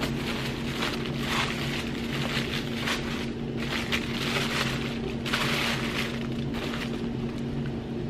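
Tissue paper rustling and crinkling in irregular bursts as hands dig through a shoe box and unwrap its contents, over a steady low hum.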